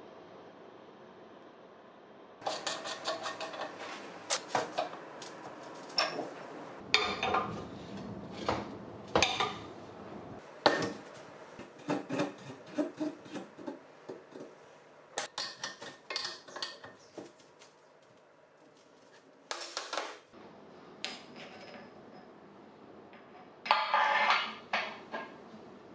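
Steel hydraulic fittings and a wrench clinking and clattering against a steel workbench as a fitting is threaded and tightened onto a hydraulic pump port, in irregular bunches of sharp metallic knocks with a short lull and a louder flurry near the end.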